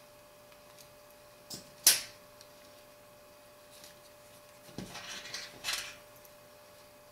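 Small tool and phone parts being handled during BlackBerry Bold 9700 reassembly. A sharp click about two seconds in, then a short run of small taps and scrapes near the end, over a faint steady hum.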